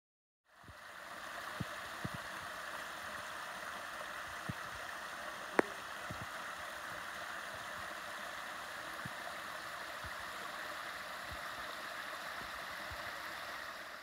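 Small creek waterfall splashing steadily over a low rock ledge into a shallow pool, fading in at the start and fading out at the end. A single sharp click about five and a half seconds in stands out above the water, with a few faint low knocks.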